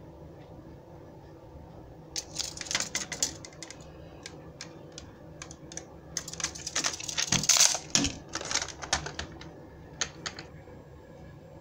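A large plastic toy cannon and a steel tape measure being handled: scattered clicks and rattles, busiest and loudest about six to eight seconds in, with a couple of dull knocks.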